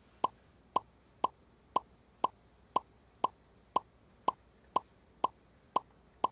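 Game-show sound effect: short pitched plops, two a second, each marking one letter taken off the alphabet strip and dropped into the answer boxes as the answer is revealed letter by letter.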